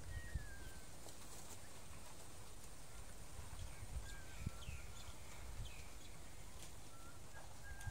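Faint open-air ambience: wind rumble on the microphone with a few short, thin bird calls and chirps.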